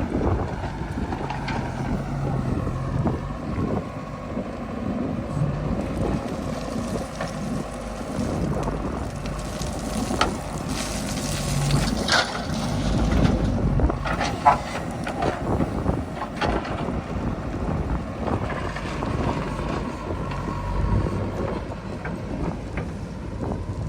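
Heavy diesel machinery engine running steadily, with wind on the microphone and a few sharp knocks around the middle.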